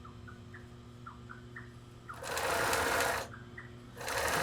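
Semi-industrial sewing machine stitching a seam in two short runs, one of about a second and a shorter one near the end, with a low steady hum between the runs.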